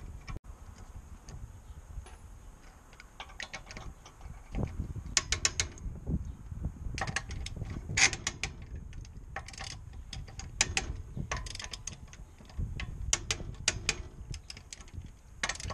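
Socket ratchet clicking in several short runs of rapid clicks as a car's wheel nuts are undone.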